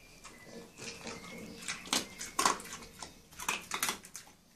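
A small dog eating dry kibble from a metal bowl: irregular crunches of chewing and clatters of food against the bowl.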